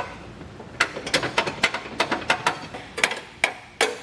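Hand ratchet wrench clicking as it runs locking flange nuts onto the new base-plate bolts. After one click at the start, a quick, slightly uneven run of sharp metallic clicks, about four a second, begins about a second in.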